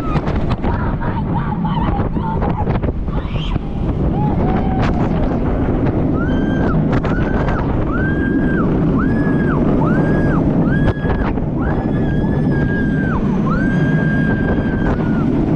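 Steel roller coaster train running fast along its track, with heavy wind buffeting the microphone. From about six seconds in, riders let out a run of short, held screams one after another, and the last is the longest.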